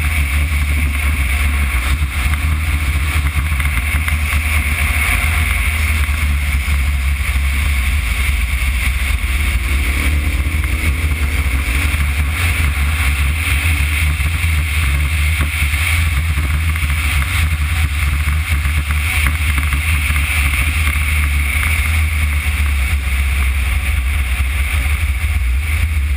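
KTM 990 Adventure's V-twin engine running steadily at cruising speed, heard from a camera mounted on the bike, mixed with constant wind and road noise.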